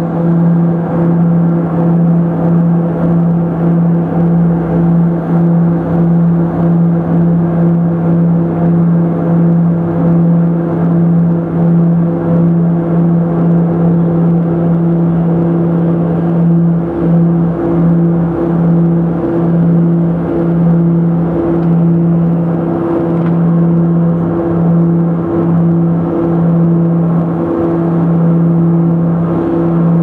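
Cockpit of a Let L-410 UVP-E20 at takeoff power: its two Walter M601E turboprop engines and propellers give a loud, steady drone through the takeoff roll and lift-off. The drone swells and fades about once a second as the two propellers beat against each other.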